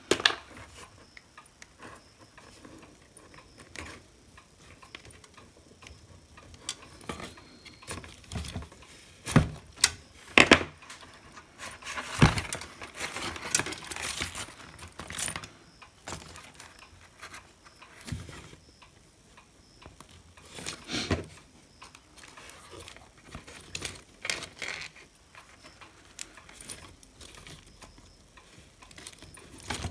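Scattered small clicks, taps and knocks of hands and tools handling a hot air gun's plastic handpiece while working the glue-sealed handle apart, with a longer stretch of scraping and rustling about twelve to fifteen seconds in.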